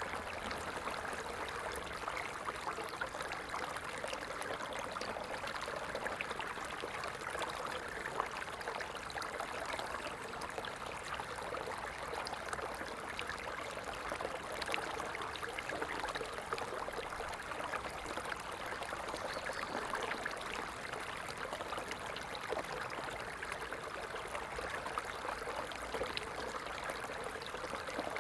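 Stream of water running steadily: an even rushing with fine splashes throughout.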